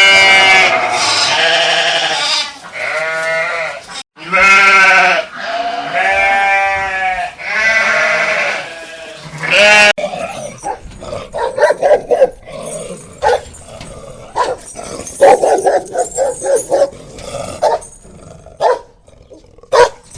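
Several long, loud bleats from a sheep or goat, one after another. About halfway through they give way to a dog barking in quick, short yaps.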